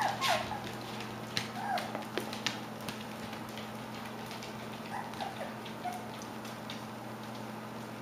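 Young klee kai / shiba inu puppies giving short, high squeaks and whimpers a few times, near the start and again about five seconds in, among scattered sharp clicks.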